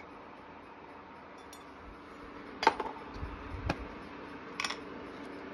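Kitchen containers clinking as spice jars are handled: three sharp clinks about a second apart, over a faint steady hum.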